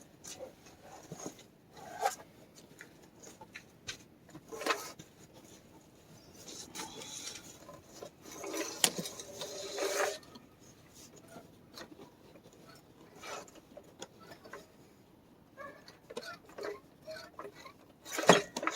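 Scattered clicks and knocks of tools and parts being handled, with a longer stretch of rubbing and scraping about eight to ten seconds in.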